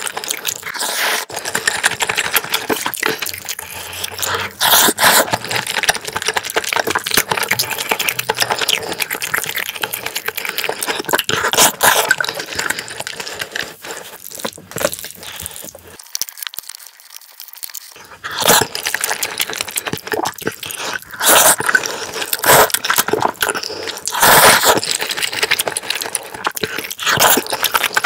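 Close-miked eating sounds of a person eating black-bean-sauce noodles and rice: irregular chewing and mouth noises mixed with short clicks and scrapes of a utensil on the metal tray. There is a brief lull about sixteen seconds in.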